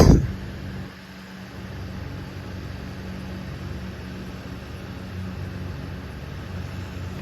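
Antique Signal 16-inch table fan running on high with its oscillator on: a steady motor hum under the rush of air. A loud thump comes right at the start.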